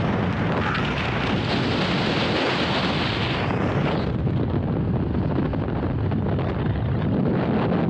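Wind buffeting the microphone: a loud, steady rush and rumble, brighter and hissier for the first four seconds.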